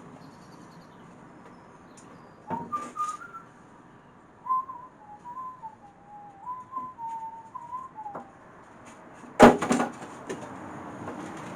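Someone whistling a wandering tune for several seconds, then a single sharp knock, the loudest sound, near the end.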